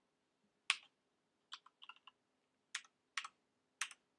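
Computer keyboard keystrokes: about ten separate key presses, some single and some in quick clusters of two or three, as a short line of code is typed.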